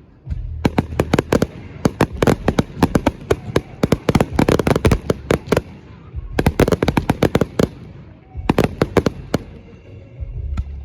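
Fireworks going off in rapid volleys of sharp bangs and crackles, in four clusters with short pauses between them, over a low rumble.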